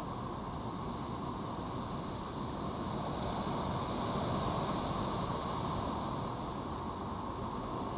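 Steady rushing outdoor background noise that swells a little around the middle.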